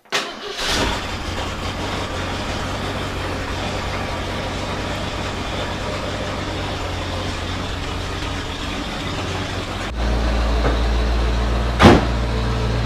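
Carbureted 351 Windsor V8 in a 1991 Ford F250 running steadily at idle. About ten seconds in the low rumble gets louder, and a sharp knock follows about two seconds later.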